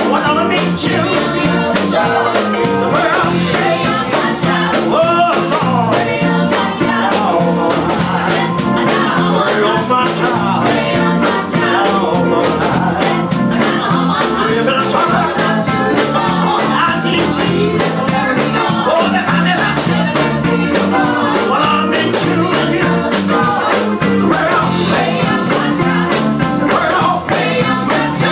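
Live band playing: a woman sings lead into a microphone with backing singers, guitar and keyboard.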